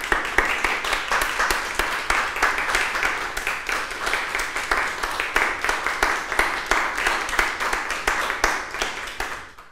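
A small audience applauding, many separate hand claps close together, fading away near the end.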